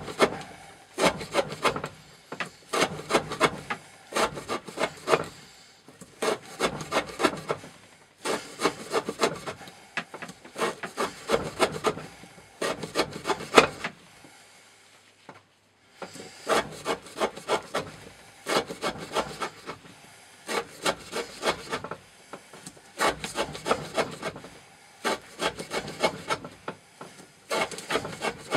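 N690 steel knife blade sawing repeatedly through rope, a fast run of short rasping strokes in groups with a brief pause about halfway.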